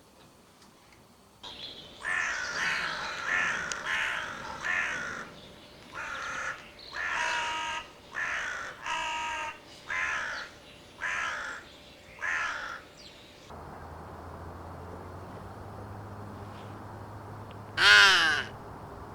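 Fearnot crow call blown by mouth, giving a run of about nine short, raspy caws over some twelve seconds. After a pause with a low steady hum in the background, one louder caw comes near the end.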